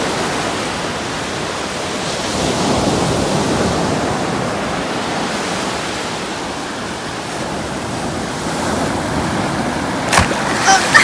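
Steady rush of ocean surf and running shallow water, with a sharp knock near the end.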